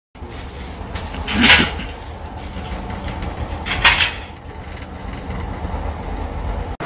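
Wheel loader's diesel engine running with a low, steady rumble, broken by two loud short noises about two seconds apart.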